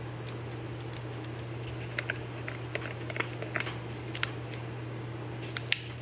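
Small plastic clicks of buttons being pressed on an Invacare MK6i wheelchair joystick, about a dozen scattered presses over a steady low hum. The reset button is being pressed without effect: the joystick's firmware won't let it past its missing-modules screen.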